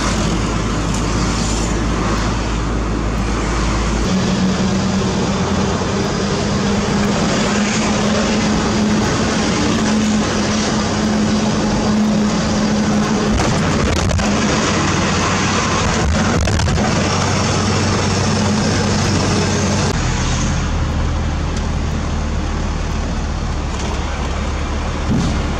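Heavy diesel engine running steadily under a dense mechanical noise, its pitch stepping to a new speed about four seconds in and again about twenty seconds in.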